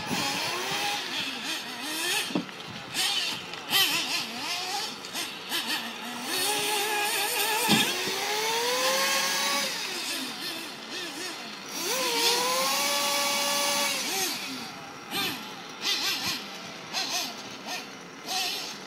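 Radio-controlled model cars' small motors running on the track, revving up in rising whines that hold steady for a second or two and then drop away, twice.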